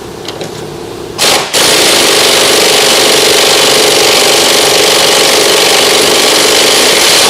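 Impact wrench running on a 17 mm nut of the rear shock: a short burst about a second in, then a steady run of about six seconds that cuts off sharply.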